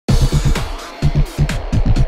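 Electronic dance music with a fast, pulsing bass beat and sharp percussion hits, starting as the video opens.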